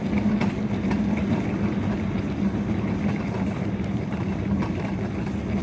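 Steady low mechanical hum with a constant drone, the running-equipment background of a large warehouse.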